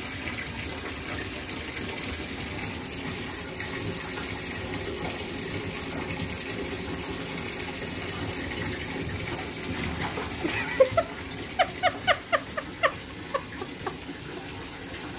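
Tap water running steadily into a bathtub. About ten seconds in, a quick run of short high squeaks, about three or four a second, cuts through the running water for a few seconds.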